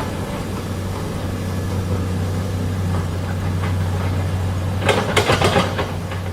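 A vehicle engine idling with a steady low hum. A short rattle of clicks comes about five seconds in.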